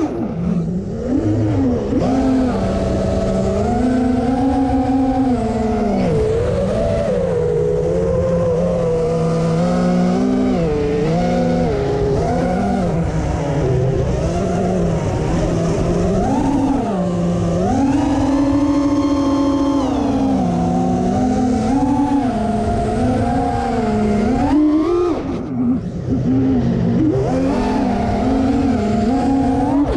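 FPV quadcopter's brushless motors and propellers, heard from the onboard camera: a buzzing whine whose pitch rises and falls constantly with the throttle, climbing highest about two-thirds of the way through. A low wind rush runs underneath, and the motor sound briefly drops away a couple of times near the end.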